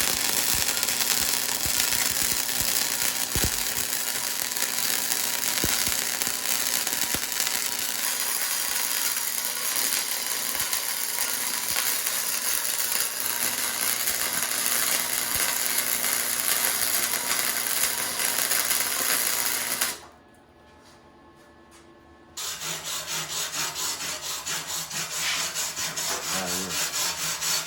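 Chicago Electric Flux 125 flux-core wire welder arc welding a bead, a steady harsh crackle and sizzle. It stops about two-thirds of the way through, falls quiet for a couple of seconds, then the arc strikes again and crackles with a regular pulsing.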